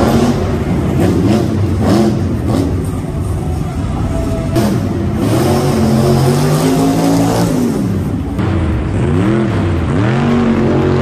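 Monster truck engine revving hard over and over, its pitch climbing and falling in repeated arcs, with a few quick blips near the end.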